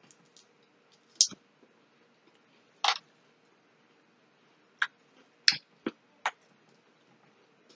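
Cooked crab leg shells cracking and snapping as they are broken open by hand, six sharp cracks spread over several seconds, one of them a longer crunch.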